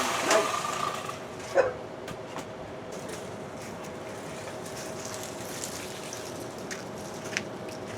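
A power tool's whine dies away in the first second. It leaves a faint steady hum and a few light clicks and knocks.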